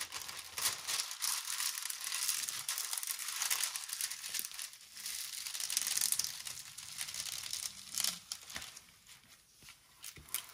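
Clear plastic protective film on a diamond painting canvas crinkling and rustling as it is smoothed down onto the sticky adhesive with a plastic scraper and a hand. The crinkling fades about eight seconds in.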